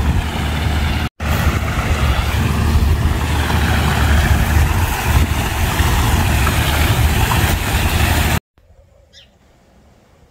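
Rushing water of a stream and small waterfall, with wind buffeting the microphone, broken by a short cut about a second in. It stops abruptly near the end, leaving a quiet background with one faint bird chirp.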